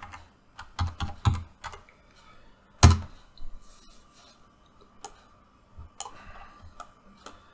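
Computer keyboard and mouse clicks, scattered and irregular, with one louder click about three seconds in.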